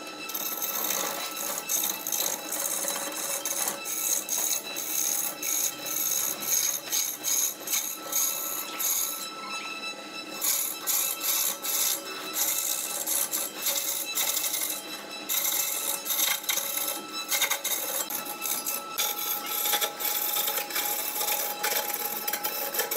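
Wood lathe running with a steady whine as a large spinning wooden cylinder is sanded by hand, a rasping hiss that swells and fades in irregular strokes.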